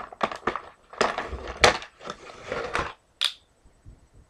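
Plastic toy packaging being cut and pulled apart by hand: a run of irregular rustles and clicks, ending in one sharp snap a little after three seconds in.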